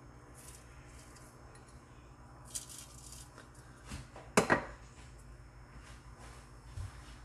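A few light clinks and knocks of kitchenware. The loudest are two close together about four and a half seconds in, over a low steady hum.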